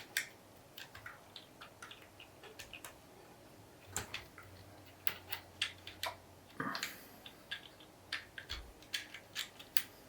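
Plastic LEGO pieces clicking and knocking together as they are handled and fitted, in many small irregular clicks that come more often in the second half.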